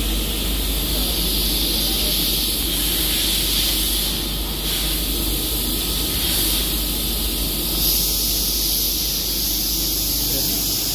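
A steady hiss with a low hum beneath it.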